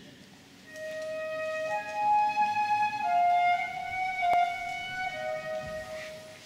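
Live orchestral music: a solo flute plays a slow melody of long held notes, starting about a second in.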